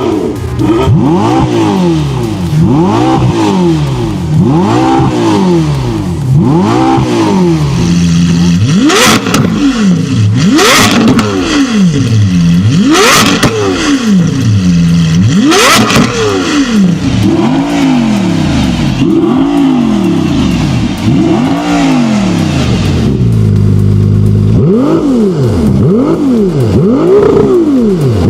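Supercar engines revving over and over, the pitch climbing and dropping every second or two. Four sharp exhaust bangs come in the middle, and the engine briefly holds at a steady low note near the end.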